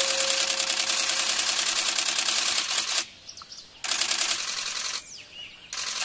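A loud, fast, even rattling buzz that cuts out abruptly twice for under a second, with faint high bird chirps heard in the gaps. A single held tone sounds over roughly the first second.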